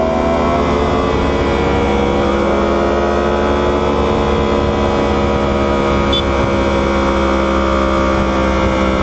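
Superbike inline-four engine running hard at high speed, its pitch rising over the first couple of seconds and then holding steady as it cruises in a high gear.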